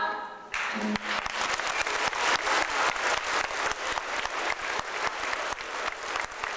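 A group of children singing holds a last note that stops about half a second in, then an audience applauds with steady clapping.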